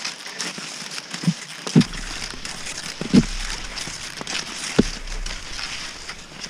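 Cross-country skis sliding and scraping over snow with a steady crunching hiss and small clicks, broken by three heavier low thumps about a second and a half apart.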